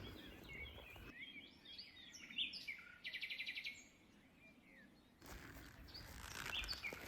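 Small forest birds chirping and calling, with a short rapid trill about three seconds in, over faint outdoor background noise.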